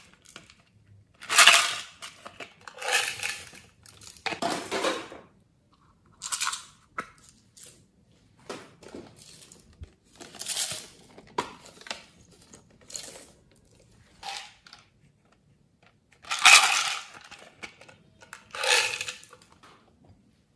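Hands handling small plastic containers of sequins and glitter over a tray: a series of short rattling, clicking bursts with pauses between, the loudest about a second and a half in and again near the end.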